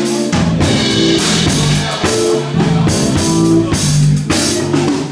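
Live band of drum kit, electric bass and keyboard playing a steady groove.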